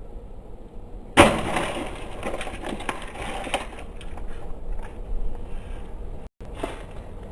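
A sudden loud crash about a second in, followed by a few seconds of crackling and clattering that die away.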